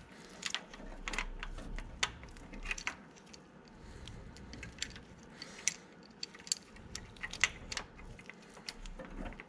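BMW M30 steel timing chain and cam sprocket clinking as they are worked by hand to seat the sprocket on the cam: a scatter of light, irregular metallic clicks and rattles.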